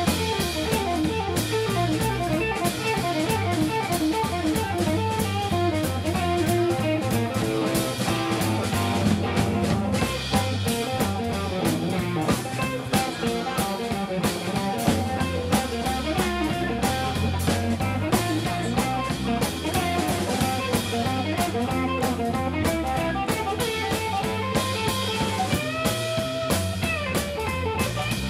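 Live blues trio jamming: electric guitar playing quick runs of lead notes over electric bass and a drum kit keeping a steady beat.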